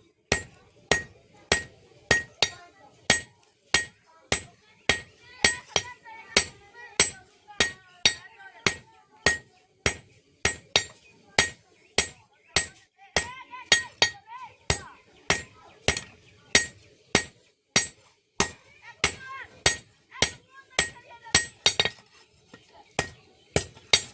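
Hand hammer striking metal on an anvil in a steady forging rhythm, a little under two blows a second, each with a bright metallic ring. The smith is beating out a one-piece steel spatula.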